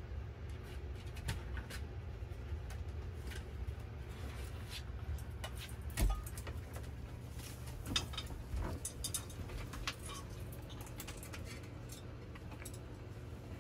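Green-winged macaw eating bread on a counter among dishes: scattered small clicks and taps from its beak and feet, with a louder knock about six seconds in and another near eight seconds, over a steady low hum.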